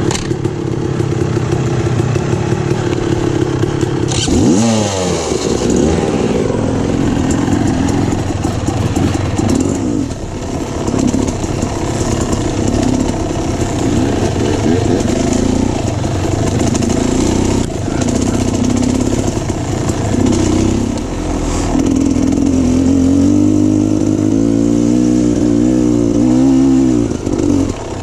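A Beta Xtrainer 300's two-stroke engine being ridden on a trail, its pitch rising and falling with the throttle. There is a sharp rev-up about four seconds in and a run of quick up-and-down revs near the end.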